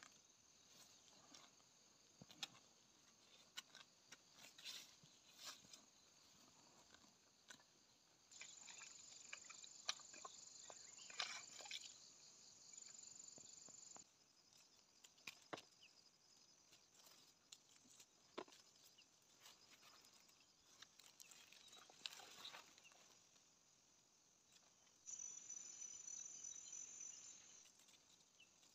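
Faint insects chirring: a high, steady trill that twice gets suddenly louder for a few seconds, with scattered small clicks and rustles.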